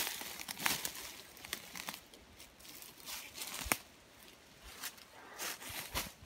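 Footsteps crunching and rustling through dry beech leaf litter, with irregular crackles from the dead leaves underfoot.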